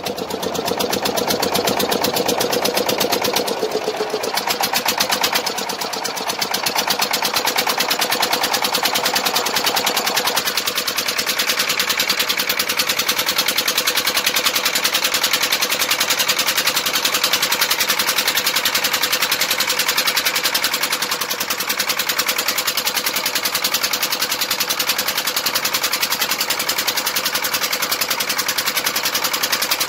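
An 8 hp single-cylinder diesel boat engine running with a fast, even chugging beat. Its tone shifts slightly about ten seconds in, then holds steady.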